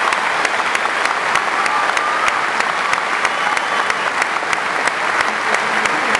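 Circus audience applauding steadily: a dense wash of many hands clapping, with sharp individual claps standing out at fairly even spacing.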